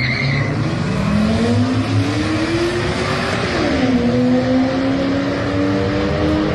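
Supercharged L67 3.8-litre V6 of a Holden Commodore accelerating hard, its note climbing steadily, dropping sharply at an upshift about three and a half seconds in, then climbing again in the next gear.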